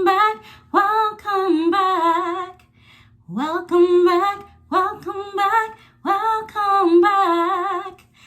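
A woman singing without accompaniment, in short held phrases with a wavering pitch.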